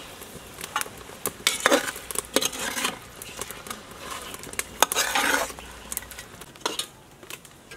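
Metal utensil clicking and scraping against an aluminium pot as fish steaks are laid into the braising sauce, with two longer bursts of sizzling, about a second and a half and five seconds in.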